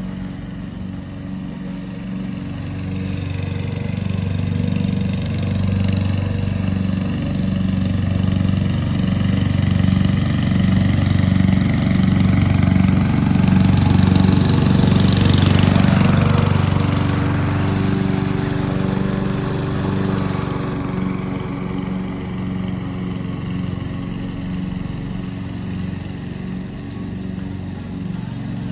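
Petrol lawn mower engine running steadily, getting louder toward the middle and then fading again.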